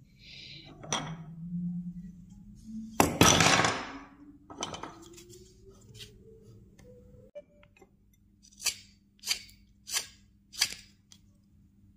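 Carving knife slicing into a small hand-held wood figure: five short crisp cuts, evenly spaced about two-thirds of a second apart, in the last few seconds. About three seconds in, one loud handling noise that lasts about a second.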